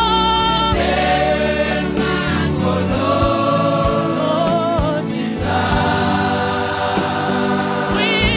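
Gospel choir singing with instrumental backing: several voices holding wavering notes over sustained chords.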